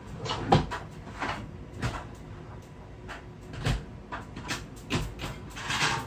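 Kitchen handling noises: a string of separate knocks and bumps, about seven in six seconds, with a short rustling clatter near the end.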